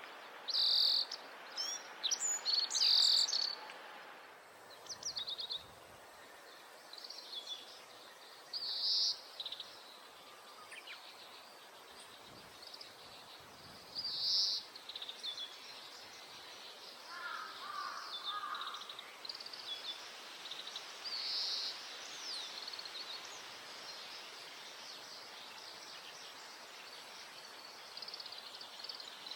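Oriental greenfinch calling: short, bright, high-pitched phrases repeated several times, the loudest in the first three seconds and again about nine and fourteen seconds in, with softer twittering notes through the rest over a steady outdoor hiss.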